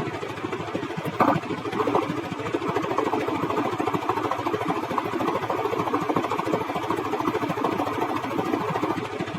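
A vehicle engine running steadily with a fast, rough pulsing, and a brief sharp click about a second in.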